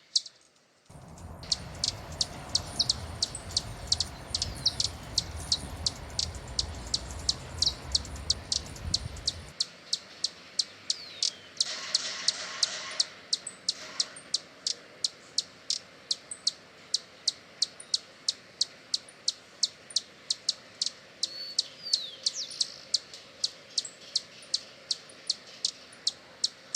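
Hummingbird chipping: short, high chip notes repeated steadily about three times a second, with a low rumbling noise underneath for the first several seconds.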